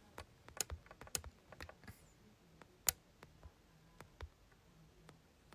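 Irregular light taps and clicks of fingers on the smartphone he is streaming from, close to its microphone, with the sharpest tap about three seconds in.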